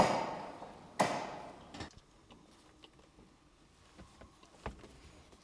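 Sharp clunks of a car's gear lever being worked: two loud clunks a second apart, each fading away, then a lighter knock. Faint clicks follow near the end, as the cabin fittings are handled.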